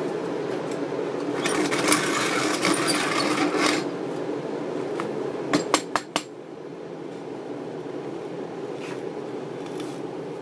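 Zassenhaus hand coffee grinder's wooden box being handled: about two seconds of crunchy, rattling noise, then four sharp wooden knocks in quick succession about halfway through, over a steady low background noise that drops away after the knocks.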